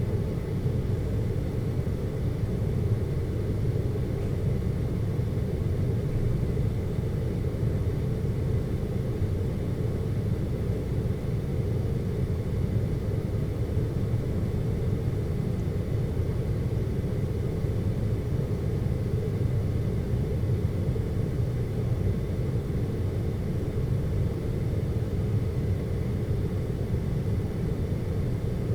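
Steady, deep hum of noise used as a sleep noise blocker, brown-noise-like, unchanging, with no distinct events.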